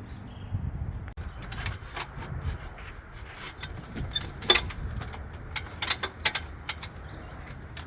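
Irregular light clicks and knocks from equipment being handled, the loudest about four and a half seconds in, over a steady low rumble.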